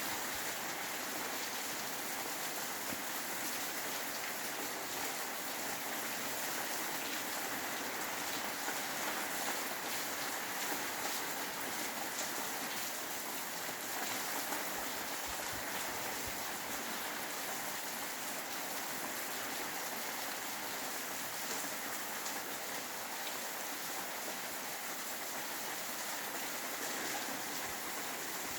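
Steady rain falling: an even, dense hiss with a fine patter of many small drops.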